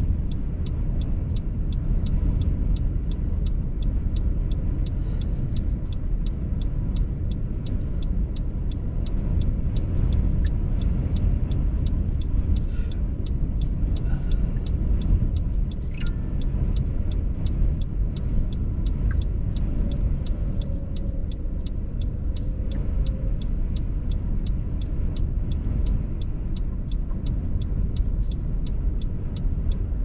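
Strong wind buffeting a stopped car, heard from inside the cabin as a steady low rumble, with a light regular ticking about twice a second.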